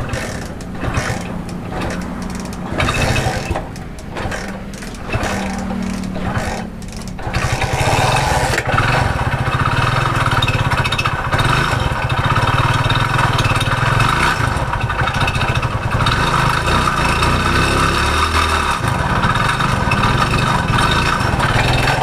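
Hero Honda Splendor's single-cylinder four-stroke engine being kick-started, catching after about seven seconds and then running steadily. It runs with a noise from inside the engine that is taken for a crank problem.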